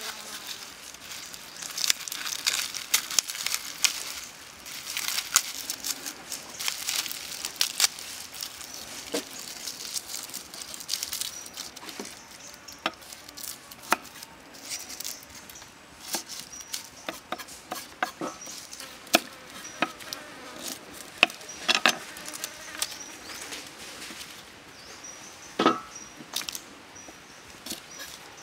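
Irregular crackling and sharp knocks as dry skins are peeled off shallots and a knife taps on a wooden stump chopping board, over the steady buzz of insects.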